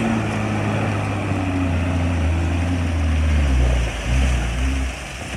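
WWII-era military jeep engine labouring as the jeep drives through a muddy water crossing, its note wavering, with water sloshing around the wheels. About three and a half seconds in the engine note drops lower and heavier, then falls away near the end.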